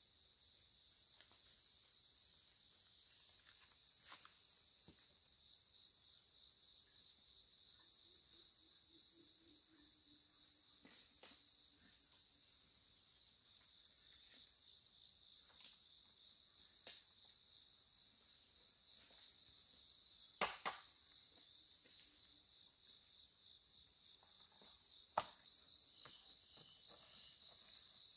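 Insect chorus, a steady high-pitched trilling. Three sharp clicks break through it about two-thirds of the way in and near the end.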